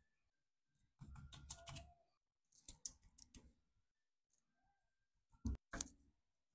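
Scattered clicks and knocks of kitchen utensils and food being handled, with a short scraping rustle about a second in and two sharp clicks near the end.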